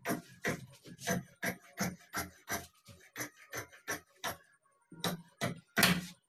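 Large tailor's shears snipping through dark trouser fabric in a steady rhythm of about three cuts a second. There is a short pause about four and a half seconds in, then three more cuts, the last the loudest.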